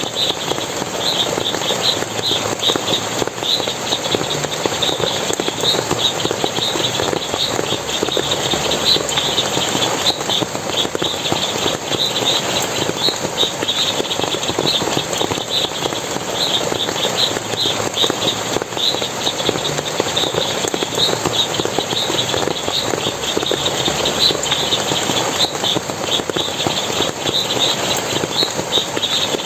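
Forest water splashing and running in a steady rush, with high, rapid chirping repeating over it throughout.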